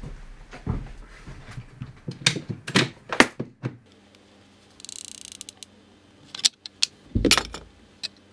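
Handling clicks and knocks as a hot glue gun and white plastic parts are picked up and set down on a wooden workbench, several sharp clicks close together in the first few seconds, a brief hiss about five seconds in, and a louder knock near the end.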